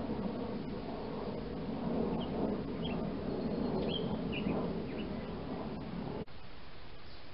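Outdoor ambience: a steady rushing hiss with a few short, high bird chirps scattered through the middle. About six seconds in the sound cuts off abruptly, leaving a fainter hiss.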